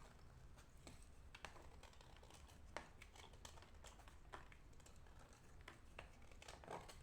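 Chunks of dry edible clay being handled and broken: scattered short, sharp clicks and snaps, several seconds apart to under a second apart, faint overall.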